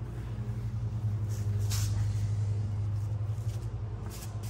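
A steady low mechanical hum, with a few short swishes of a rag wiping a tire sidewall about a second and a half in.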